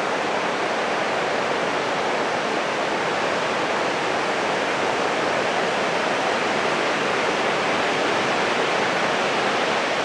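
Steady roar of breaking ocean surf: an even rushing noise with no separate wave crashes standing out.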